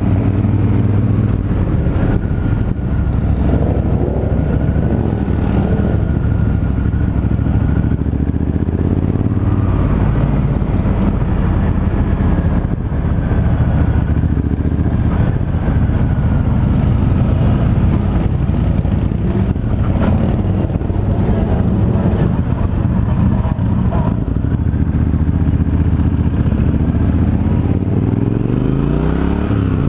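Triumph Thunderbird Storm's big parallel-twin engine running steadily on the move, with the engine pitch rising near the end as it accelerates.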